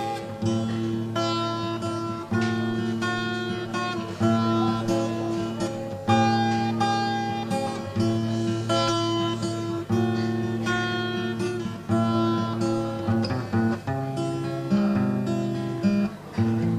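Acoustic guitar music without singing, playing chords that change every second or two.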